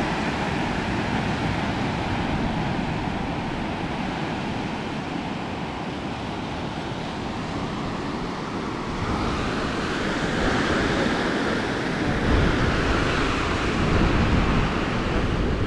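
Ocean surf washing onto a sandy beach, with wind buffeting the microphone; the wind rumble grows heavier near the end.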